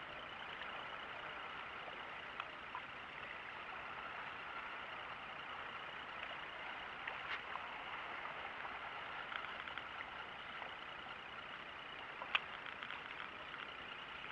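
Steady faint background hiss, with a few faint clicks and one sharper click about twelve seconds in.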